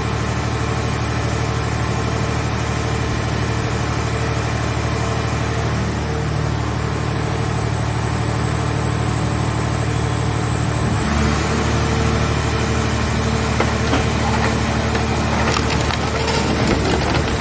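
Hydraulic scrap car shell baler running with a steady drone from its power unit; about eleven seconds in the pitch shifts as it comes under load, and crackling and creaking follow as the car body's sheet metal is crushed.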